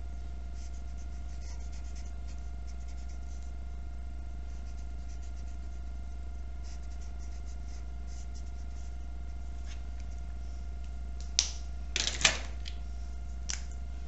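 Felt-tip marker tapping and scratching lightly on paper while a fish is colored in, faint over a steady electrical hum. Near the end come a few sharper clicks as the marker is put down and another picked up.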